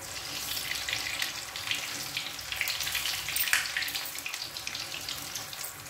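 Hot oil sizzling and crackling with many small pops as batter-coated paneer cheese drums deep-fry in an iron kadhai.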